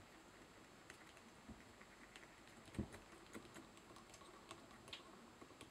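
Near silence broken by faint, scattered small clicks and taps of metal fly-tying tools being handled at the vise, with one louder tap a little before the middle.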